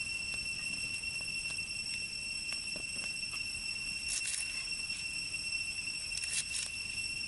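Broad-bladed kitchen knife chopping tomato and then culantro leaves on a wooden chopping block: irregular knocks of the blade on the board, in quicker runs about four and six seconds in. A steady high-pitched whine runs beneath.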